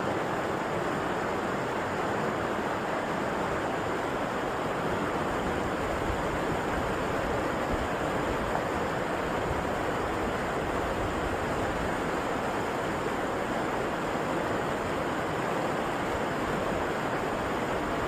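Shallow river rushing over rocks and riffles: a steady, even rush of flowing water.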